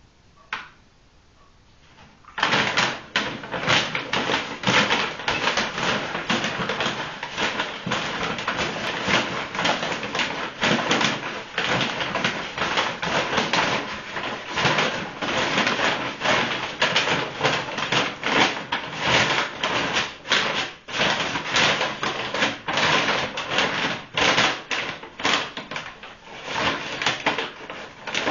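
A shopping bag crinkling and rustling as a dog digs inside it, a dense irregular crackle that starts about two seconds in and keeps going.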